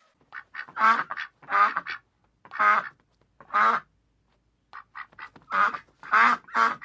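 Duck quacking repeatedly: a run of short, nasal calls, some clipped and some longer, with a pause of about a second near the middle.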